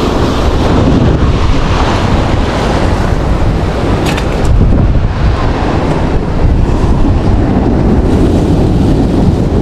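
Strong wind buffeting the microphone over surf washing on a beach. A few short clicks come about four seconds in.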